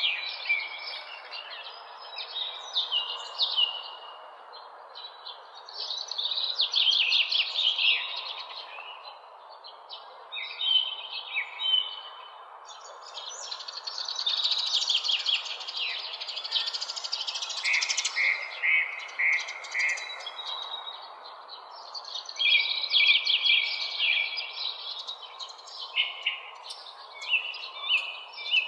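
Several songbirds singing and chirping in overlapping phrases of rapid trills and notes, coming and going in waves, over a steady low background hiss.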